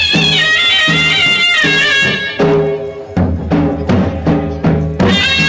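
Gujarati folk music for a Charani raas: a high, reedy melody over a steady drum beat. The melody breaks off about two seconds in, leaving the drums striking alone, and comes back in near the end.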